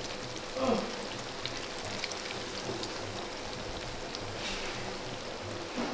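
Flour-coated chicken pieces deep-frying in a large aluminium pot of oil: a steady sizzle full of small crackling pops. A short vocal sound comes about half a second in.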